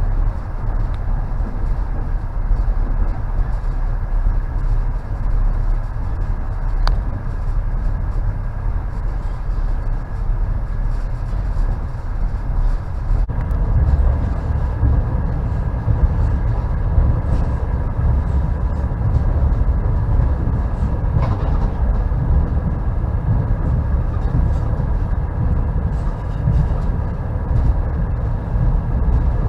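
Passenger train carriage running on the rails: a steady low rumble with the knock of the wheels, and a sharp click about a quarter of the way in. The rumble grows louder about halfway through.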